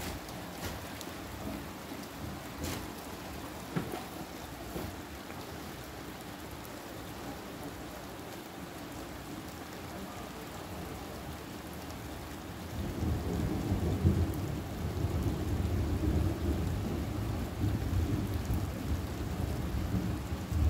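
Steady rain falling during a thunderstorm, with a few sharp taps early on. About two-thirds of the way through, a long, low rumble of thunder builds and rolls on for the rest of the time.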